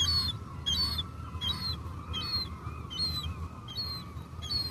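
Seagulls calling, short high cries repeating about twice a second, with a fainter wavering call underneath.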